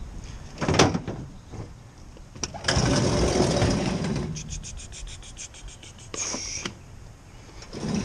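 Pickup truck tailgate dropping open with a sharp clunk about a second in, then a slide-out bed storage drawer being pulled out with a long sliding rumble, followed by a quick run of clicks, about eight a second, and a short rattle.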